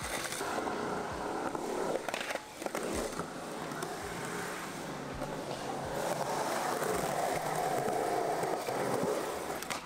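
Skateboard wheels rolling over concrete, a steady rumbling roll, with a few short knocks from the board in the first three seconds.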